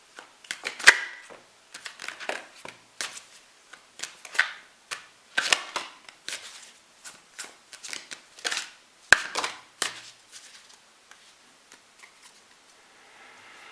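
Tarot cards being shuffled and handled, with irregular sharp snaps and taps of the cards, one or two a second, thinning out after about ten seconds.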